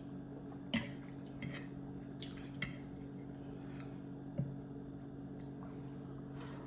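Quiet eating sounds: a handful of short clicks and smacks from chewing and a utensil touching the plate, the loudest about a second in, over a steady low hum.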